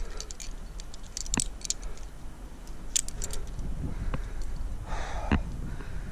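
Metal climbing gear jangling and clicking: aluminium carabiners and quickdraws knocking together on a climbing harness, a dozen or so short, sharp clicks scattered irregularly over a low steady rumble.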